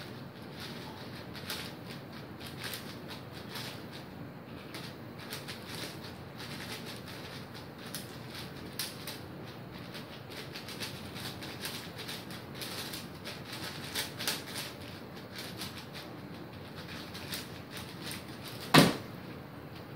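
Plastic 5x5 speedcube (Cubicle Magnetic WuShuang) being turned very fast, a continuous rapid clatter of layer turns and clicks. Near the end, one loud slap as the solved cube is set down and hands hit the Speed Stacks timer pads to stop it.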